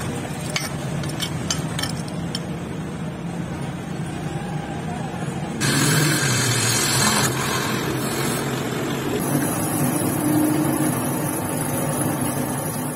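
Machine-shop noise: a steady motor hum with a few light ticks, then from about six seconds in a louder, hissing cutting noise as a drilling machine bores out the worn clutch-lever hole in a motorcycle clutch cover. The sound changes abruptly a couple more times, and a steady machine tone follows near the end.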